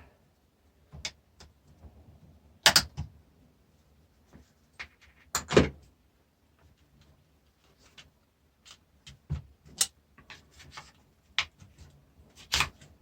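Scattered clicks, knocks and rattles of a food mixer's parts and hand tools being handled while the mixer is taken apart, with two louder knocks about three and five and a half seconds in.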